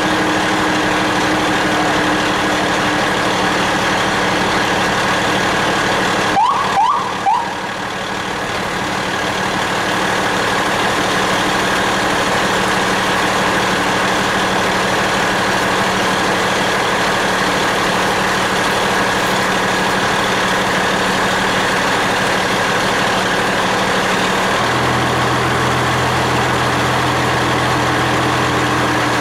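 Fire truck's engine running steadily under way, heard from inside the cab as a constant drone with a steady hum. About six seconds in, a few short rising chirps sound, and near the end a lower hum joins the engine note.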